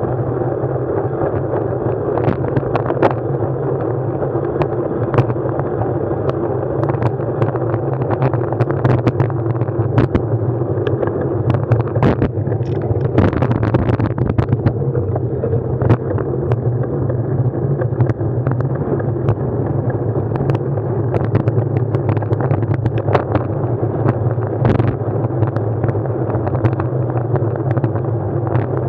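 Steady ride noise from a moving vehicle: a constant low drone with rushing noise over it, broken by frequent sharp clicks and rattles.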